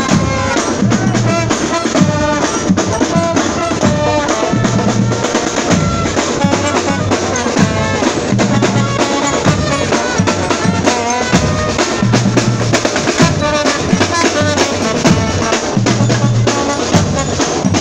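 Marching band playing: trombones and a tuba carry the tune and a repeating low bass line over snare drums and bass drums keeping a steady march beat.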